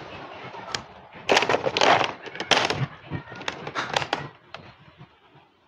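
A cat eating wet food: irregular wet chewing and smacking clicks that come in short bunches, then die away near the end.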